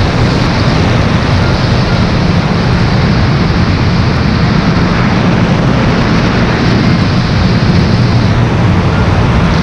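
Audi A3 Quattro driving fast on a snow-covered ice track: a steady engine drone mixed with tyre and rushing wind noise, heard from a camera mounted outside on the front wing.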